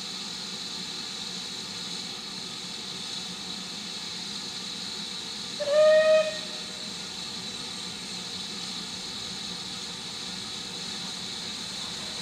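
Steam whistle of Merchant Navy class Pacific 35006, one short blast of under a second about halfway through, over a steady hiss of escaping steam.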